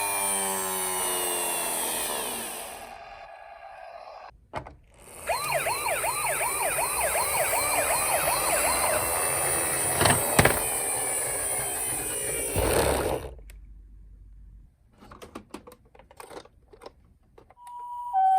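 Toy ambulance minicar's electronic siren. It opens with a falling wail, then runs a rapid yelp of about three sweeps a second for several seconds, with two sharp clicks near the middle. After a quieter stretch of light clicks, the hi-lo two-tone of a Japanese ambulance siren starts near the end.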